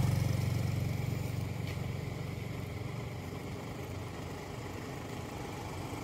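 A motor vehicle's engine running as it moves away, loudest at the start and fading steadily over the first few seconds into a low, steady running sound.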